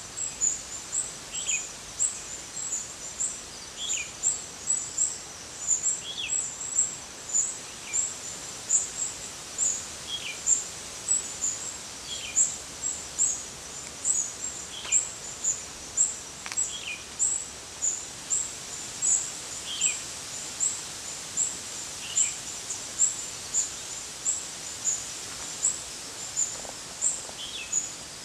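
Birds calling: a high chirp repeated steadily about twice a second, with a lower, shorter call dropping in pitch every couple of seconds.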